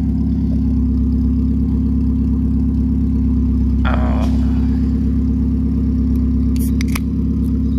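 Car engine idling steadily, a low even drone that neither rises nor falls.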